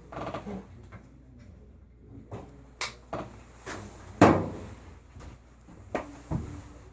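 Scattered knocks and clatter of hard objects being handled and set down, with about half a dozen sharp strikes. The loudest comes about four seconds in.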